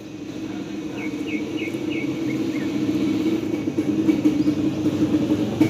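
A motor vehicle's engine running and growing steadily louder, with a few short high chirps about a second in.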